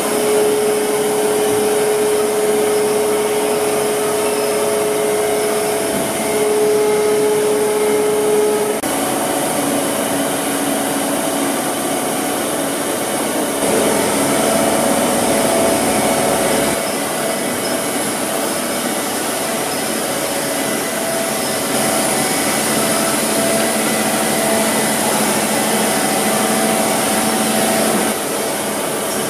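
Hyundai Wia KBN-135 CNC horizontal boring and milling machine running, its spindle turning at about 2,000 rpm: a steady mechanical hum with a whine that holds for the first several seconds and breaks off briefly once. After that the mix of tones shifts in several steps.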